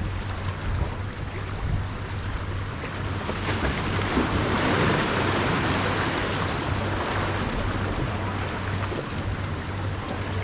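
Ocean waves washing in along the shore, with one surge building about four seconds in and easing off, over wind on the microphone and a steady low hum.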